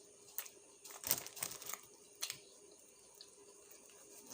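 Close-miked sounds of a person eating a hamburger: scattered soft crackles and crinkles, busiest from about one to two seconds in.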